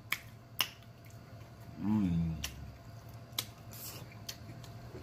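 Mouth noises from chewing a mouthful of chitterlings: sharp wet clicks and smacks at uneven intervals, with a short low hum about two seconds in.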